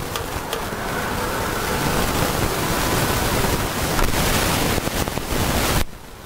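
Steady rushing noise of wind and roadside traffic, which drops away sharply near the end.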